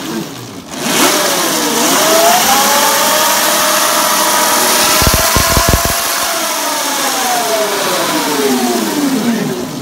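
The electric Yamaha R1 race bike is revved up on its stand: a whine rises about a second in, holds steady for several seconds, then falls away near the end as the motor winds down, over a loud rushing noise from the drive and the spinning rear wheel.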